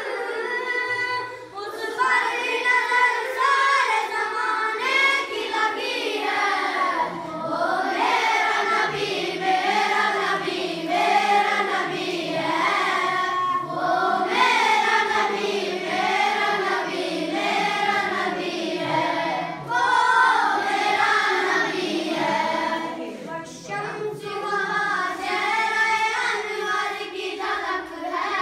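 A boy singing a naat, a devotional song praising the Prophet Muhammad, unaccompanied, in long melodic phrases whose pitch glides up and down.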